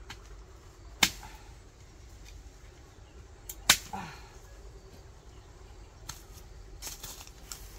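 Digging tool striking hard into soil and cassava roots: two sharp blows about a second in and near four seconds, then a few lighter knocks near the end.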